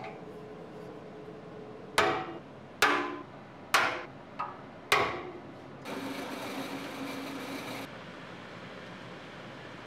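Five ringing hammer blows on a steel gear rack clamped to a steel beam, tapping it into position, the fourth lighter than the rest. About a second later, a steady machine whir runs for about two seconds and stops.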